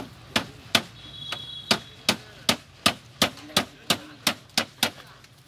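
Hammer blows struck in quick succession, about a dozen sharp knocks at roughly three a second, stopping shortly before the end.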